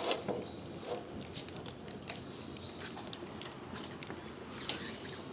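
Coconut-shell fire crackling faintly, with scattered small pops and ticks over a low hiss.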